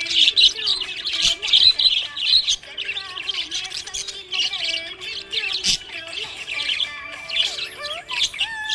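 Budgerigars chirping and chattering in a rapid, busy stream of high chirps and squawks, over quieter background music.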